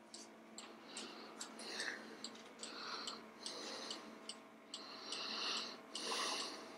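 Faint clicks repeating about every half second, with short bursts of hissing or rustling noise over a low steady hum.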